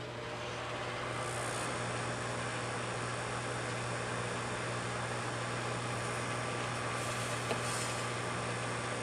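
Microwave oven running: a steady hum with fan noise while it heats, and a single click about seven and a half seconds in.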